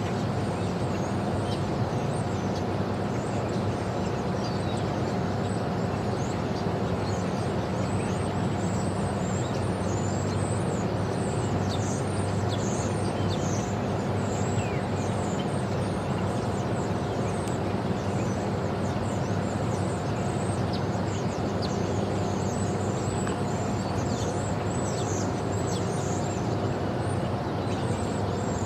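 Steady, unchanging low engine rumble with a constant hum over it, and many short, high chirps repeating above it.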